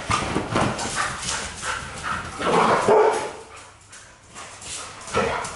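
Dogs barking and making short play calls as a puppy and an adult dog play-fight. The calls come thick and fast at first, loudest about two and a half seconds in, then drop away briefly before another bark near the end.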